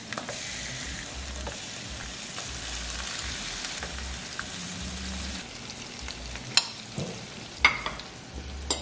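Lobster tails sizzling in hot fat in a stovetop griddle pan: a steady frying hiss that thins out in the last few seconds, with a few sharp clicks near the end.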